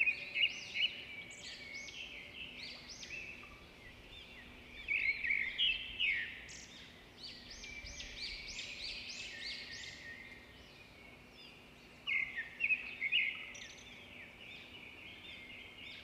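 Small birds chirping and twittering outdoors: many quick, high, overlapping chirps and glides, with louder flurries a few times.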